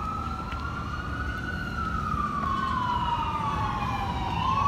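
Emergency vehicle siren wailing, its pitch sliding slowly up and down over a few seconds and starting to rise again near the end, over a low rumble of street traffic.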